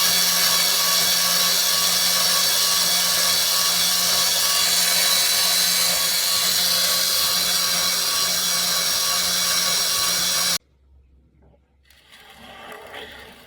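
Stainless-steel-burr grain mill grinding wheat: a loud, very steady mechanical whir with a constant low hum, which cuts off abruptly about ten and a half seconds in. Faint scraping and handling sounds follow near the end.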